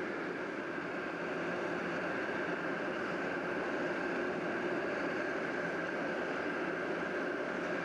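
A steady, even engine drone as cars drive slowly across a hovercraft's enclosed car deck.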